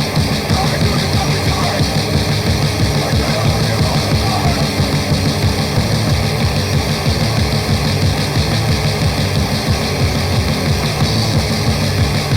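Loud, raw grindcore music: a dense, unbroken wall of heavily distorted guitar and bass over fast, pummelling drums.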